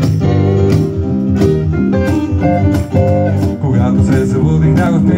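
Small live band playing an instrumental passage on acoustic guitar and keyboard, with the guitar struck in regular attacks.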